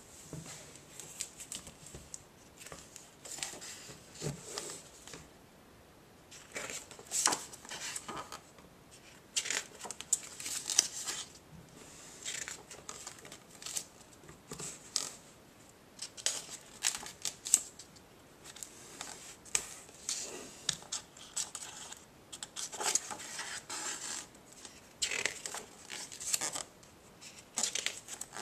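Stiff paper and card pages of a pop-up picture book being handled and turned: irregular rustling, scraping and crackling, in short bursts every second or so.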